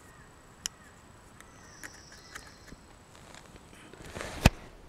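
Handling noises: a few light clicks, then a short rustle ending in a sharp knock about four and a half seconds in.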